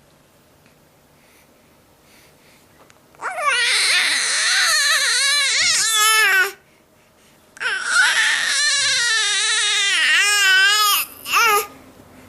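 A baby crying out in long, loud, high-pitched wavering wails: two of about three seconds each, then a short one near the end.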